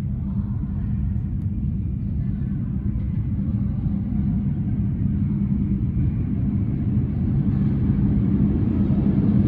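New York City subway train rumbling in the station, a low steady rumble with a constant hum that slowly grows louder toward the end.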